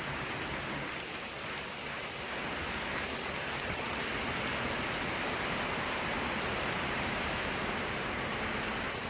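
Strong wind and heavy rain in a storm: a loud, steady rushing that swells slightly about three seconds in.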